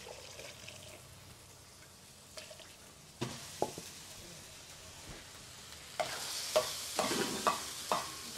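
Ground pork frying on a hot comal, sizzling. A couple of knocks come a little after three seconds in. From about six seconds in, a spatula stirs and scrapes the meat across the pan, and the sizzle grows louder with several sharp scrapes.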